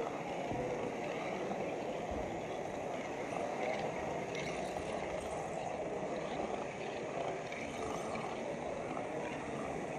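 Steady hubbub of a large, echoing exhibition hall: the mixed murmur of many visitors with no single voice standing out.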